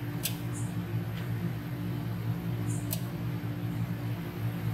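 A steady low mechanical hum, with two light sharp clicks about two and a half seconds apart.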